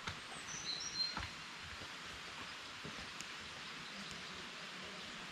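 Steady rushing hiss of distant flowing water from a waterfall through forest, with a few short high bird chirps in the first second and occasional faint footstep clicks on rock.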